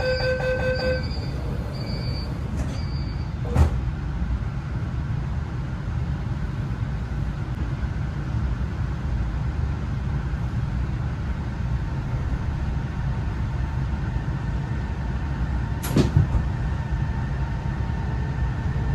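Steady low rumble inside a Beijing Daxing Airport Express train carriage. An electronic tone from the on-board broadcast ends about a second in, a sharp knock comes about three and a half seconds in, and a double knock comes near the end.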